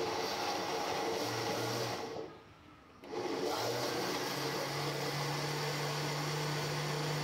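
Electric blender running, blending mango pieces, yogurt and sugar into lassi. The motor cuts out for about a second around two seconds in, then starts again and runs steadily.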